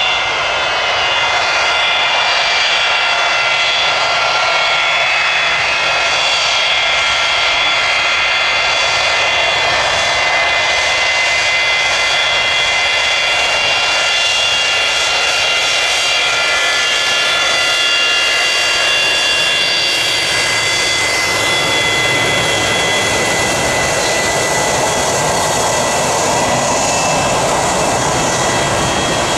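Boeing 727's three Pratt & Whitney JT8D turbofan engines running on the ground as the jet turns on the runway: a cluster of high whining tones over a steady jet noise, with a deeper rumble building in the second half as the engines swing away.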